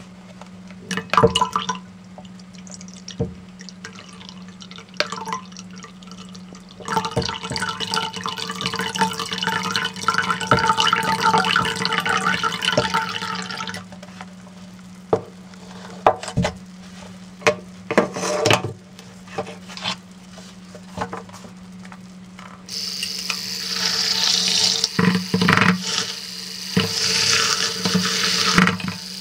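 Coffee being made in a ceramic mug: scattered clinks and knocks against the mug, then a liquid poured in for several seconds. From about three-quarters of the way through, a handheld battery milk frother whirs in the coffee in two short runs. A steady low hum sits underneath.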